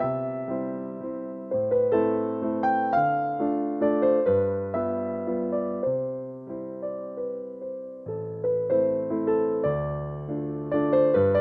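Background music: a solo electric piano playing a slow, gentle melody over low bass notes, each note struck and then fading.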